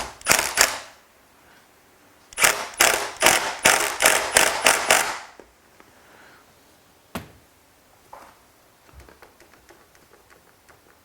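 Hand work on car seat-rail hardware: a few sharp clicks at the start, then a quick run of about ten sharp clicks over about three seconds, a single click a couple of seconds later and faint ticking after.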